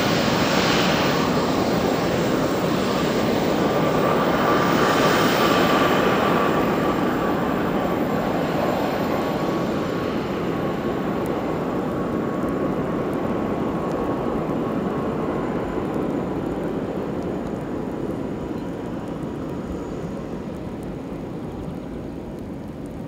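Four JetsMunt M166 model jet turbines on a 1/13-scale RC Airbus A380 running at taxi power as it rolls along the runway: a steady rush with a thin whine that fades as the aircraft moves away.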